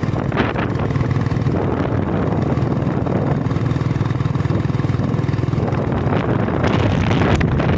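Steady engine hum and road noise of a moving vehicle, heard from on board, with wind rushing over the microphone that grows louder near the end.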